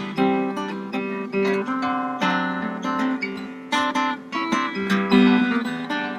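Harp guitar played fingerstyle: a plucked melody over chords, each note struck and left to ring.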